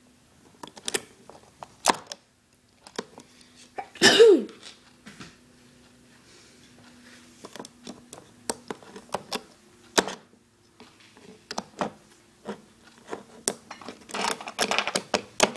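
Scattered clicks and taps of plastic loom pegs and rubber bands being handled as the band work is pulled off the loom, growing busier near the end. A brief vocal sound cuts in about four seconds in, over a faint steady hum.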